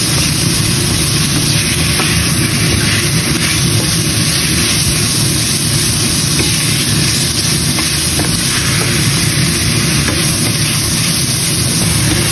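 Ground meat sizzling steadily in a frying pan as a wooden spatula stirs and breaks it up, with a few faint scrapes.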